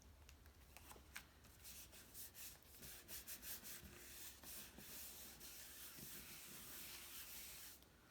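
Cardstock pieces rubbed and handled by hand: a run of soft, scratchy paper strokes that grows denser about two seconds in and stops suddenly near the end.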